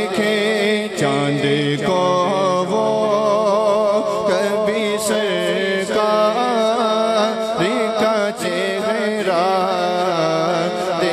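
A male naat reciter singing into a microphone, holding long wavering, ornamented notes that carry no clear words, over a steady low vocal drone.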